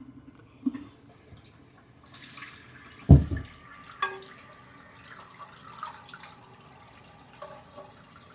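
Toilet tank filling with water through its fill valve, a steady running-water sound. A single heavy thump about three seconds in, with a few lighter knocks around it.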